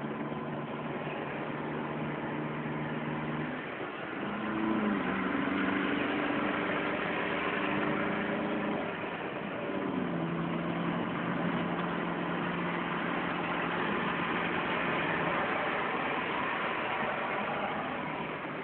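Car engine running while driving, heard from inside the cabin. Its note breaks off and climbs about four seconds in, then slides down around ten seconds in before holding steady again.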